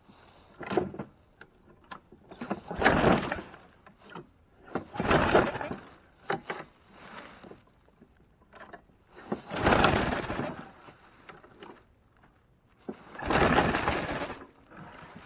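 Toro push mower's small engine being pull-started four times, each pull of the recoil starter a second-long burst of cranking, with smaller knocks between pulls. The engine, primed with starter fluid, does not catch and keep running.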